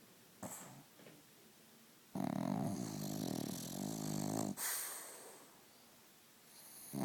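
Snoring: a long, loud pitched snore lasting about two and a half seconds from about two seconds in, followed by a hissing breath that fades away. Another snore starts right at the end.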